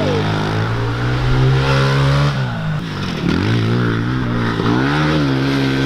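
Pit bike engine under hard throttle as the bike is ridden: the pitch climbs, falls away about three seconds in as the throttle is let off, then climbs again and holds.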